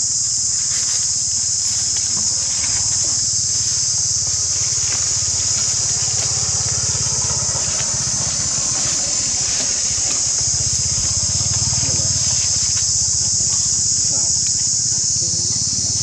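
Steady high-pitched drone of an insect chorus, unbroken throughout, over a low steady murmur.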